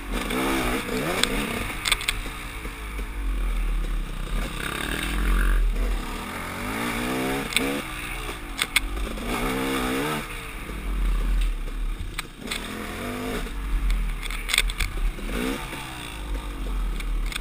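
KTM dirt bike engine revving up and down over and over as it is ridden over rough trail, with scattered knocks and clatter from the bike. Low wind rumble on the microphone.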